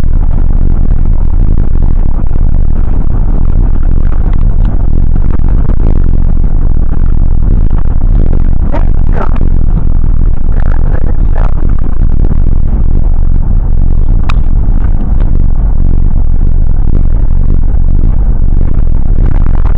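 Bus running on the road, heard from inside the passenger cabin: a steady, very loud engine and road rumble that overloads the recording, with rattles and scrapes from the bodywork. A couple of short wavering whines come about halfway through, and a sharp click follows a few seconds later.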